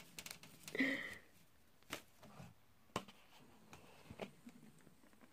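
Faint handling of a plastic water bottle: a few scattered sharp clicks and light knocks as it is picked up and its cap is worked. There is a brief low vocal sound about a second in.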